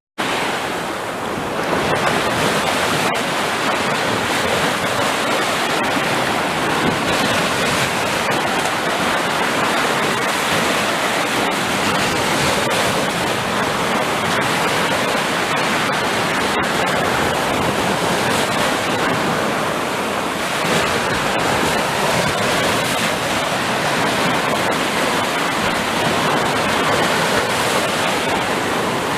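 Sea surf rushing continuously onto a shore, a dense steady wash of breaking waves with only gentle rises and falls and no separate breakers standing out. The sound cuts out for an instant right at the start.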